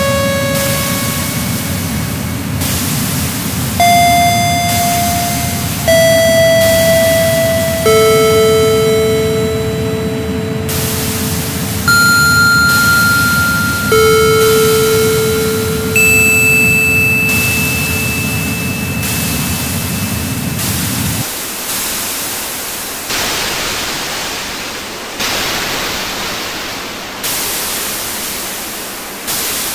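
Electronic noise music: a wash of hiss whose colour changes sharply about every two seconds, each change struck loud and then fading, with steady electronic tones held over it at shifting pitches. A little past two-thirds of the way through the held tones and the low noise underneath drop out, leaving only the hiss.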